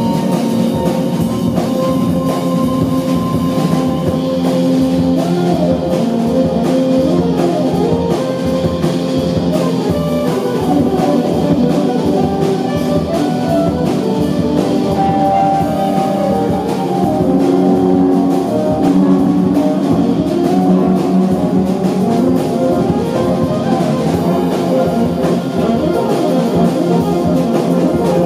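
A small jazz band playing live: saxophone lines over double bass, drums and keyboards.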